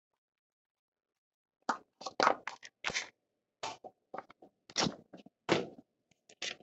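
A string of sharp, irregular clicks and knocks starting a little under two seconds in: cartridges being pressed into an AR-style rifle magazine, and the magazine and rifle being handled on a rubber bench mat.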